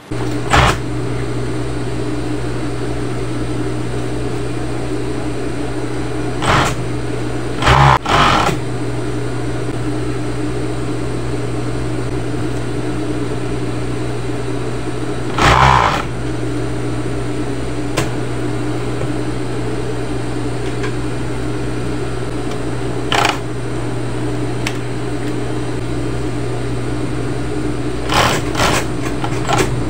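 Industrial overlock machine running steadily, stitching the edge of knit fabric, its motor giving a constant hum. A few brief knocks break in, the loudest about 8 seconds in and again near 16 seconds.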